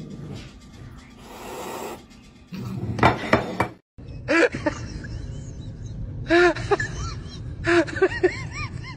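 A cat chirping: runs of short, rising-and-falling chirps in quick clusters, after a few knocks and clatter about three seconds in.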